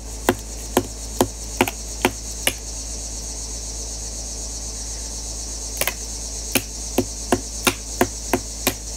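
Sharp knocks about two a second as a broken fishing rod piece is struck to break a fitting off it. One run stops about two and a half seconds in and a second run starts near six seconds, over a steady high-pitched chorus of insects.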